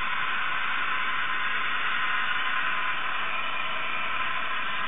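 Toy Mercury Mark 55 outboard's small electric motor running, its propeller churning water, heard as a steady whirring hiss.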